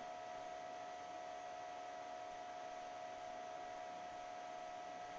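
Steady electrical hum: a constant tone with fainter higher tones above it, over a faint even hiss.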